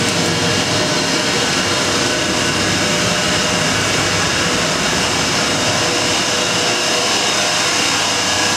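Steady, loud, fan-like whir of the running equipment in an EP20 electric locomotive's machine room, with several steady tones running through it.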